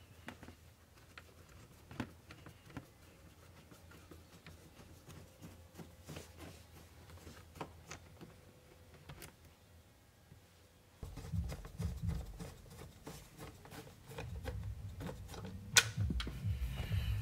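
Screwdriver and hands working the screws and plastic trim of a car's lower dash panel: scattered light clicks and ticks, with a sharper click near the end. About eleven seconds in, background music with a steady bass pulse comes in.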